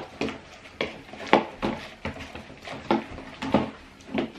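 A utensil stirring slime in a bowl, knocking and scraping against the bowl at irregular intervals, as borax activator is mixed into glue.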